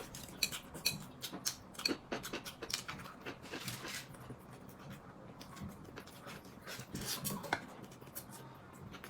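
Close-up eating sounds: someone chewing with wet mouth noises, with many light clicks and taps scattered through.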